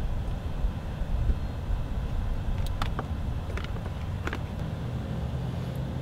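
Low, steady rumbling background noise with a handful of light, sharp clicks in the middle of the stretch from a hand crimping tool and crimp-on wire connectors being worked.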